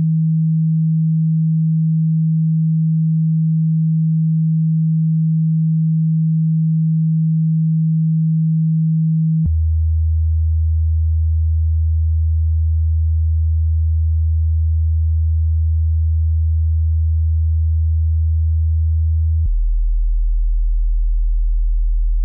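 Steady, low, pure electronic drone tone that drops abruptly to a lower pitch twice: once about nine and a half seconds in, and again about twenty seconds in.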